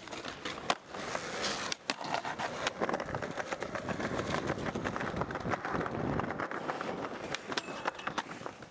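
Skateboard urethane wheels rolling over concrete paving, broken by sharp clacks and knocks of the board on tricks and landings. Near the end the board slides along a low metal rail.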